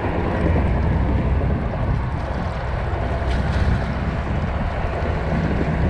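Steady wind buffeting the microphone, a low rumble, over water washing against shoreline rocks.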